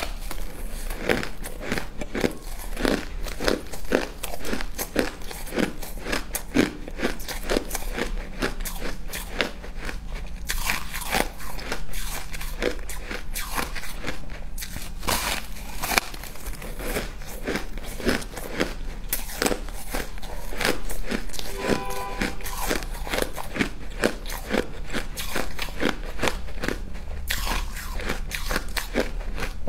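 Frozen pink ice being bitten and crunched between the teeth up close, in a dense run of sharp crackles and crunches that goes on without a break.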